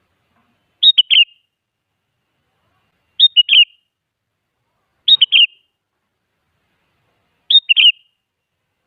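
Sooty-headed bulbul singing: four short, loud phrases, each a quick run of three or four clear notes, spaced about two seconds apart with silence between.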